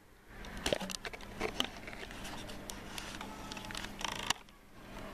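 Quiet room tone with a steady low hum, broken by scattered small clicks and knocks, with a short cluster of them about four seconds in.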